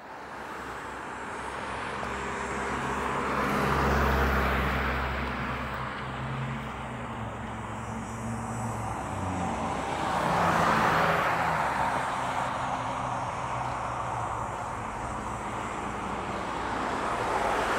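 Road traffic: motor vehicles passing by, with a steady engine hum underneath and two louder pass-bys, one about four seconds in and another about ten seconds in.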